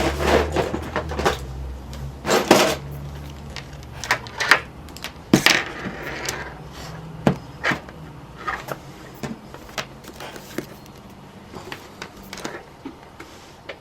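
Irregular clicks, knocks and clatter of hands working on a desk: plugging in a laptop power adapter and handling a voltmeter and its test leads. The clicks grow sparser and quieter toward the end.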